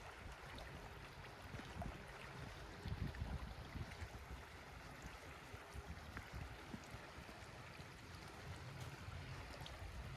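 A river flowing: a faint, steady rush of water, with low rumbling gusts that are strongest about three seconds in.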